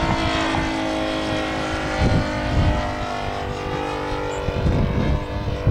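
52cc Taurus gas engine of a large radio-control aerobatic plane running in flight, a steady buzz whose pitch dips and then rises again as it flies past and changes throttle. The engine is running OK but needs its low end leaned out.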